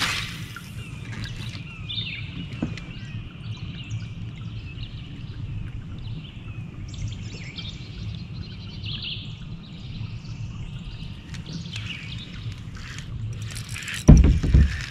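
Wild birds chirping and singing over a steady low rumble, with a short sharp noise at the start and a loud low bump near the end.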